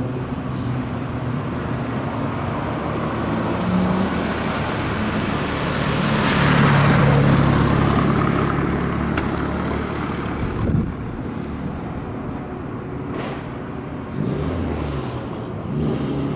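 Hill-climb race car at full throttle passing close by. Its engine note builds to a peak a few seconds in, then fades away up the course.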